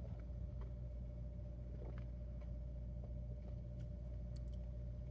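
Steady low electrical hum with a faint, steady higher tone and a few faint, short clicks.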